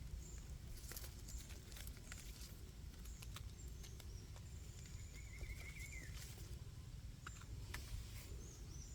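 Faint rustling and scattered light clicks of someone picking mushrooms from forest litter by hand, over a low rumble. A short warbling call comes about five seconds in, with thin high chirps here and there.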